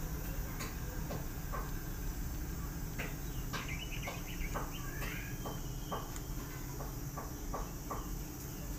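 A cat chewing dry kibble: a run of short, crisp crunches, most of them in the middle and later part. A few faint high chirps sound in the background.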